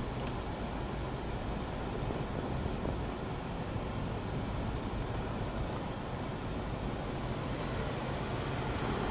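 Steady noise of a car driving: engine and tyres on the road.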